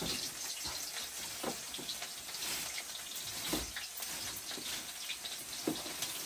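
Steady low sizzling from a wok heating over a wood fire, with small scattered crackles and the light rustle of a plastic bag being opened.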